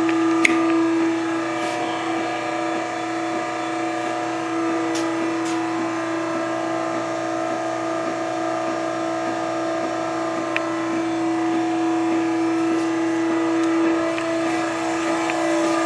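Pull-test machine's motor running with a steady hum, with a few faint clicks.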